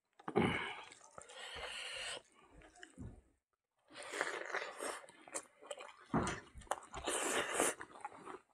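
A person eating rice by hand. Fingers mix and squish rice in a wooden bowl, then a mouthful is chewed noisily with wet smacking and clicking, with a short pause a little past the middle.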